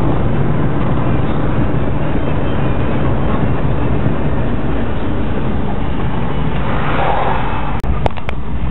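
Steady road and engine noise inside a moving car's cabin, with the sound cutting out for an instant and a few clicks near the end.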